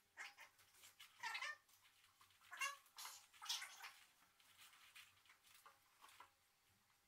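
Faint rustling and handling sounds as a costume helmet and cloth cape are taken off, a string of short scuffs with a few brief squeaky glides among them.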